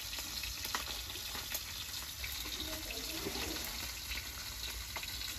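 Fish frying in oil in a wok over a wood fire: a steady, low sizzle with a few faint pops.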